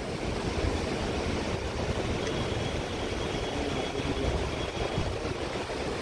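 Steady low outdoor rumble of wind on the microphone and road traffic along a mountain highway, with a faint thin high whine through the middle.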